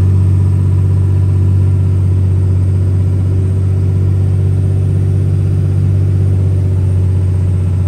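Steady engine and road noise of a vehicle being driven, heard from inside the cabin: an even low hum under a wash of tyre noise.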